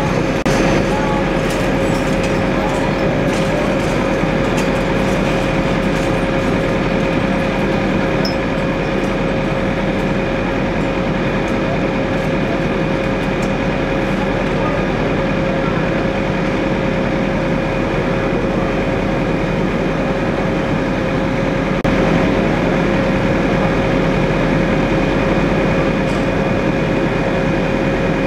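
Fire engine running steadily: a dense, even drone with a steady held tone through it.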